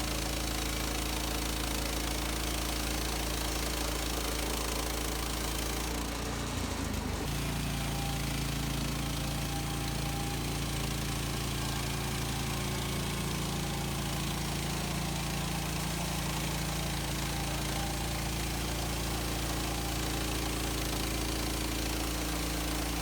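Portable bandsaw sawmill's gasoline engine running steadily, its pitch changing briefly about six seconds in and then settling again.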